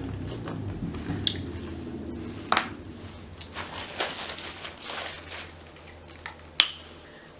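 Close-up eating of seafood: wet chewing and squishing, with sharp clicks and cracks of shells scattered through, the loudest crack near the end.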